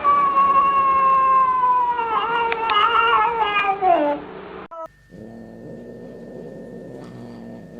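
A cat caterwauling: one long, loud yowl that slowly falls in pitch, wavers and breaks off about four seconds in. After a cut there is a quieter, low, steady growl.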